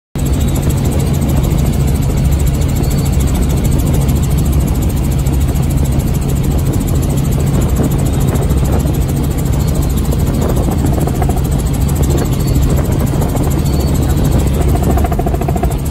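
Helicopter in flight: steady engine and rotor drone with a constant low hum, starting abruptly and holding an even level throughout.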